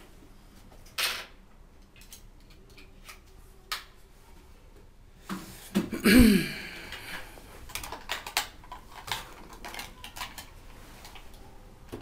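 Clinks and knocks of small hard objects being handled and set down, with one louder, longer noise about six seconds in.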